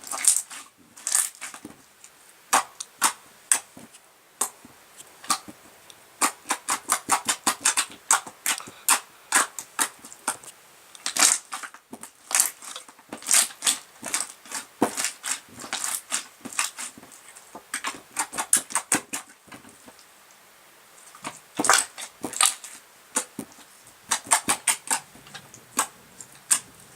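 Pink slime being squeezed and kneaded by hand, giving off rapid, irregular clicking and popping sounds in clusters with short pauses.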